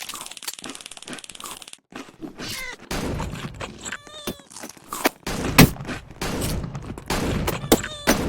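A cat meowing, with several short wavering calls, among knocks and rustling; a loud thump comes about five and a half seconds in. A rasping hiss fills the first couple of seconds.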